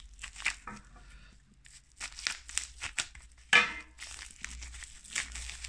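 Clear plastic coin wrapping crinkling and crackling in the hands as a coin is unwrapped, in scattered short crackles with one louder crackle about three and a half seconds in.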